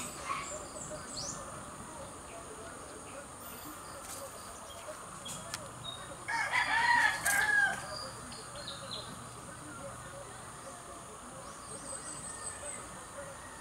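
A rooster crowing once, about halfway through: a single call lasting about a second and a half.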